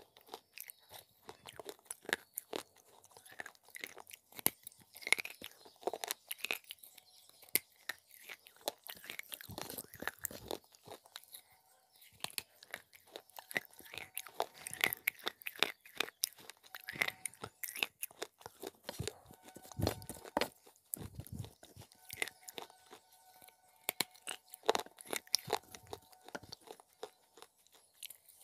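Pieces of a fired-clay pot crunching as they are broken off, bitten and chewed close to the microphone, in many irregular sharp crunches.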